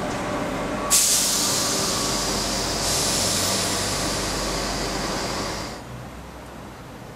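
Suburban commuter train standing at a platform, with a loud hiss of released air starting suddenly about a second in and running for several seconds before it drops away near the end, leaving quieter station ambience.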